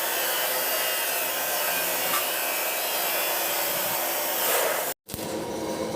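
Steady hissing, whirring noise of a metalworking machine working steel centering sheets. It cuts off abruptly about five seconds in and returns briefly as a rougher scraping sound.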